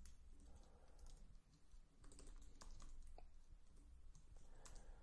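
Faint computer keyboard typing: a few scattered keystrokes over quiet room tone.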